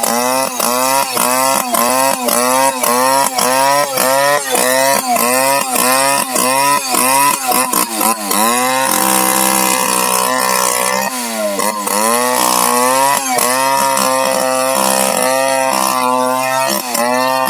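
Two-stroke chainsaw engine revved again and again, its pitch rising and falling about twice a second, then held at high speed for a couple of seconds near the middle before the revving resumes.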